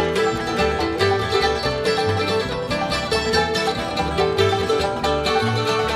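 Bluegrass band playing an instrumental break between sung verses: banjo, fiddle, acoustic guitar, mandolin and upright bass together, the bass plucking notes on a steady beat.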